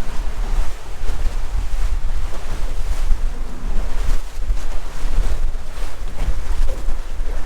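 Wind buffeting the microphone in a loud, uneven rumble, over the wash of water around a small boat.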